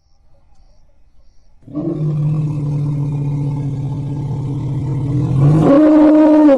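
Kumki elephant, a trained Asian working elephant, giving a long, steady low-pitched call that starts a little under two seconds in; near the end the call jumps higher in pitch and grows louder.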